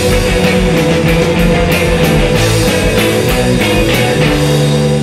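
Background music with a steady beat and several held notes. Near the end the beat stops, leaving sustained low notes.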